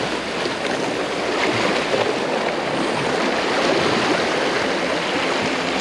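Sea water washing and splashing over shoreline rocks: a steady, rushing wash.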